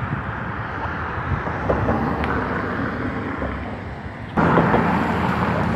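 Road traffic on the highway alongside: cars driving past in a steady rush. About four seconds in it suddenly gets louder.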